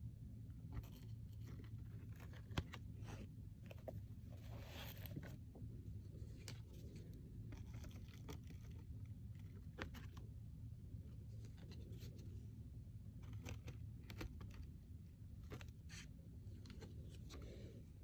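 Oracle cards being handled one after another: faint clicks and taps as cards are flipped and laid down, with a brief sliding scrape about four seconds in, over a steady low hum.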